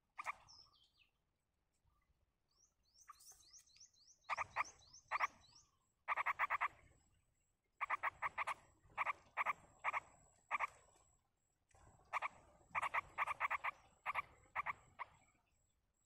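Animal calls: short bursts of a few rapid pulsed notes, repeated through most of the time, with a run of about ten quick high chirps sliding downward three to five seconds in. A thin, steady high tone sounds faintly from about five seconds on.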